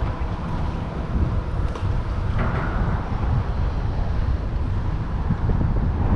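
Wind buffeting the microphone, a loud, uneven low rumble, with a brief hiss about two and a half seconds in.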